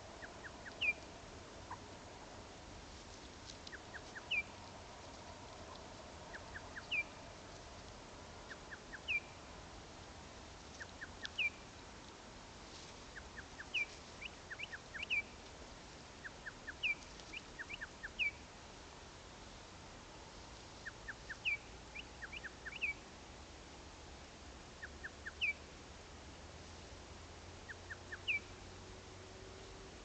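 A wild animal calling at dusk: a couple of quick clicks, then a short falling chirp, repeated every two to three seconds over a faint steady hiss.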